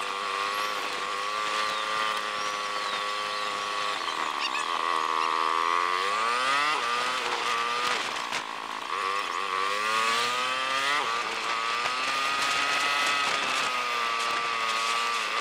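Knobby mountain-bike tyres humming on pavement while riding in a pack: a steady hum that rises and falls in pitch as the speed changes, with rushing road and wind noise.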